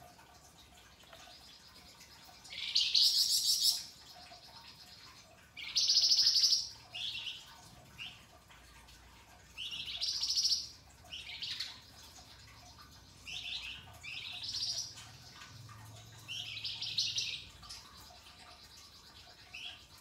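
Caged flamboyan songbird singing in short bursts of rapid, harsh chattering trills, about eight phrases spaced a second or two apart, the loudest about six seconds in.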